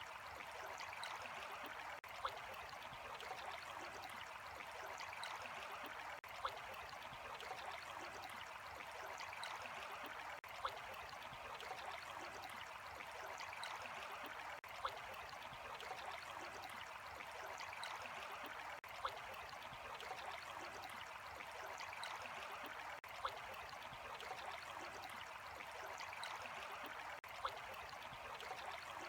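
Water trickling and babbling steadily, like a small stream, with a short click recurring about every four seconds.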